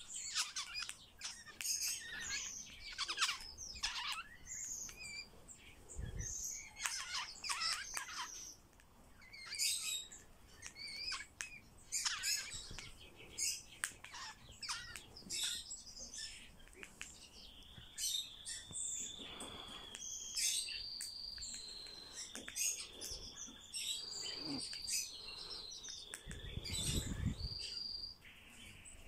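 Tame Eurasian golden oriole calling with rapid short chirps, bunched in quick runs. From about two-thirds of the way through, a steady high whistling tone sounds under the chirps and steps up and down in pitch.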